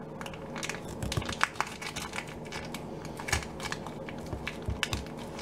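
Foil wrapper of a cream cheese brick crinkling as a knife cuts the brick in half and hands handle the foiled pieces: a run of small, irregular crackles.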